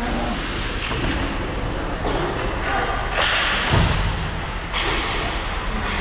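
Ice hockey play: a thud against the rink boards a little under four seconds in, over the arena's steady background noise.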